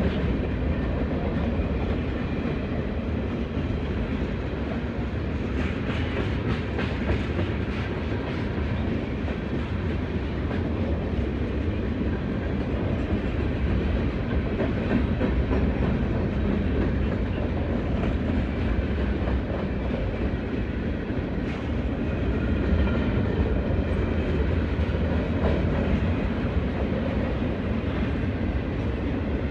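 Freight train's cars rolling past: a steady rumble with wheels clacking over the rail joints.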